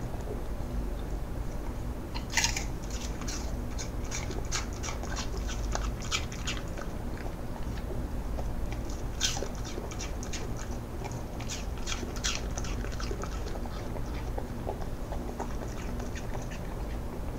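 Cocker spaniel crunching and chewing a piece of apple: a run of crisp, irregular crunches, the loudest about two and a half seconds in and again about nine seconds in.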